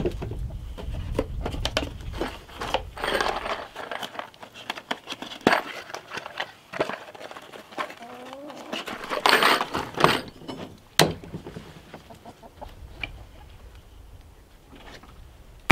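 Hens clucking, with short calls about eight seconds in, among scattered clicks and clatters.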